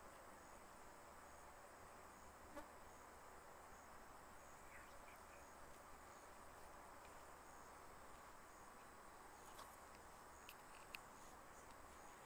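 Near silence: a faint steady hiss with a soft, high insect chirp repeating evenly, a little more than once a second. A few faint ticks fall near the middle and near the end.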